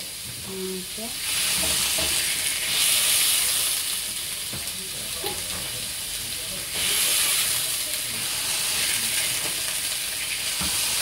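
Turkey steak sizzling in olive oil in a ridged grill pan, a steady frying hiss that grows louder about a second in and again about seven seconds in.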